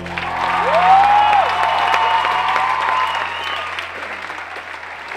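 Audience applauding, with a cheer about half a second in, while the last held chord of the song dies away underneath. The applause swells over the first second and then fades.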